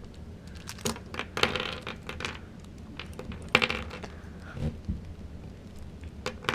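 Plastic pieces of a disassembled GAN 354M speed cube clicking and clattering as they are handled and set down: a string of sharp clicks, some with a short ring, the loudest about three and a half seconds in.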